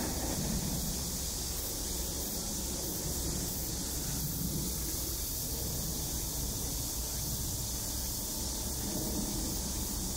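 Steady high hiss of outdoor ambience with a low rumble underneath. No distinct bird calls stand out.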